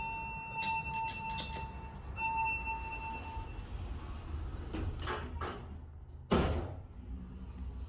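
Parking-garage elevator: a steady electronic beep tone sounds for about three and a half seconds with a few clicks, then the doors slide and close with a knock about six seconds in.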